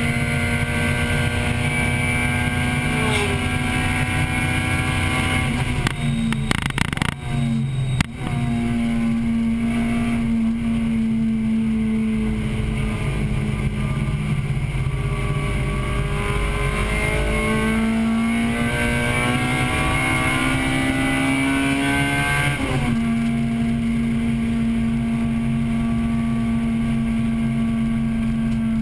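In-cabin sound of a 1998 Acura Integra Type-R's 1.8-litre VTEC four-cylinder racing at high revs. A quick series of sharp clicks and shifts comes about seven seconds in, as it brakes and shifts down. The revs sag and then climb again, and near the end of the climb there is an abrupt drop as it shifts up, after which it runs steadily.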